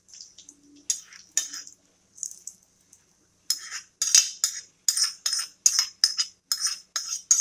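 A steel spoon scraping and clinking against a metal pan as the hot oil tempering is spooned out. A couple of scrapes come about a second in, then a steady run of about two scrapes a second through the second half.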